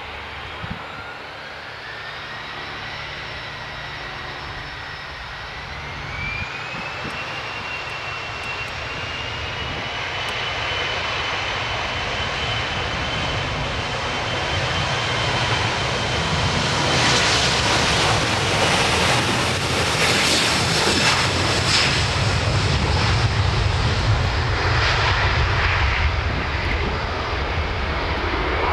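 Boeing 737's turbofan engines spooling up to takeoff power: a whine climbing in pitch over the first several seconds, then holding steady. Under it a roar keeps building as the jet accelerates down the runway, and it is loudest through the second half.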